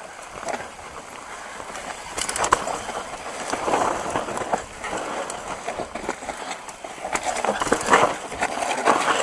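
Mountain bike rolling downhill on a rocky dirt singletrack: knobby tyres crunching over dirt and stones, with the bike rattling and knocking over bumps. It gets louder about two seconds in.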